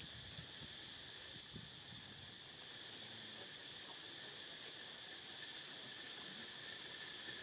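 A steady insect chorus, a continuous high buzz at two pitches, with a few faint rustles in the first three seconds.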